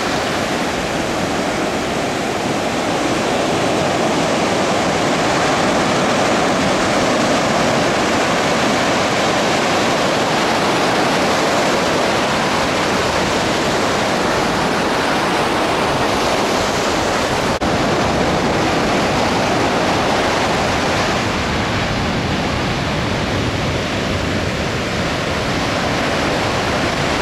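Ocean surf washing up a sandy beach: a steady, loud rushing of waves.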